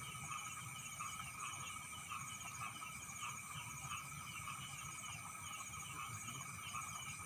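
Night chorus of frogs and insects calling together: quick repeating calls over a continuous high trill, steady throughout.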